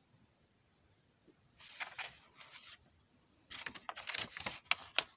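Paper page of a hand-drawn picture book being turned: a short rustle about a second and a half in, then a longer run of rustling with a few crisp snaps of the paper.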